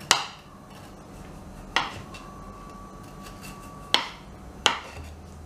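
Serrated bread knife knocking against a wooden cutting board four times while trimming the hard edge of a cake layer: short, sharp knocks spaced a second or two apart.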